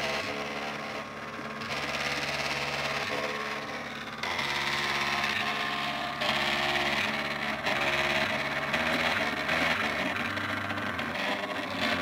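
Stepper motors of a home-built wooden 3D printer whining as it prints, the tone jumping to a new pitch every half second to a second or so as the axes change speed and direction.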